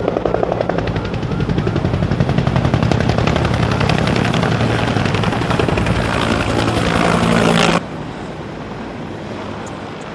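Helicopter rotor beating fast and loud over a steady engine drone. It cuts off abruptly near the end, leaving a quieter steady rushing noise.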